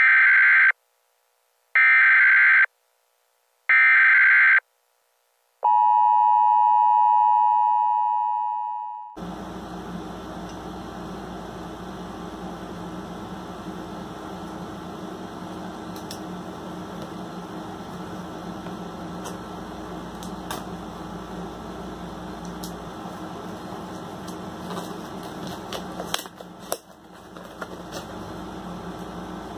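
Three short electronic beeps about two seconds apart, then one longer, lower tone that fades out over about three seconds. A steady room hum follows, with a few light clicks, and near the end a cardboard box being handled.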